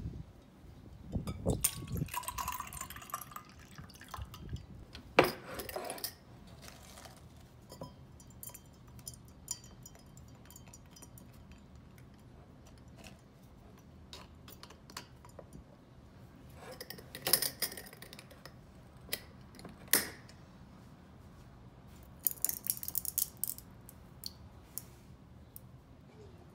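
Dishes and cutlery being handled: light clinks and clatter in several short clusters, with quiet stretches between.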